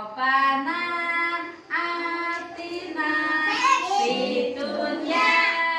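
Young children singing a song together, with held, sustained notes, and a woman's voice singing along.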